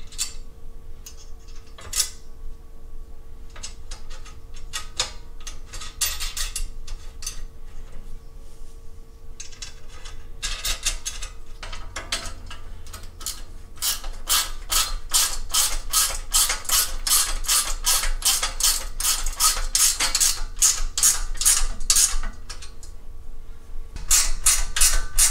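Hand ratchet clicking as nuts are run down onto the bolts of a steel welding table frame. Scattered clicks come first, then a long steady run of about three clicks a second through the middle, and another quick burst near the end.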